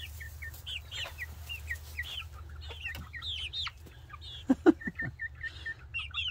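A flock of young pullets, about two months old, peeping and chirping in short, high, falling calls, with a couple of lower, louder calls about four and a half seconds in.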